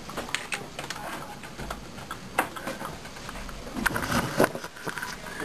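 Scattered light clicks and taps, then a cluster of louder knocks and rustles about four seconds in as the handheld camera is picked up and moved.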